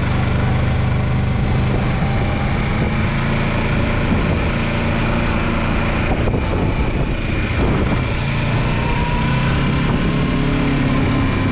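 Steady engine and road noise of a moving car, with an unbroken low drone.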